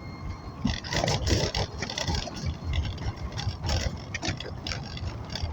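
Vehicle running, with a steady low rumble and scattered clattering and knocking noises.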